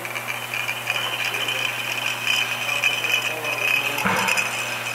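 Glass bottles clinking against each other and the guides on a running bottle-filling conveyor, over a steady whir from the line.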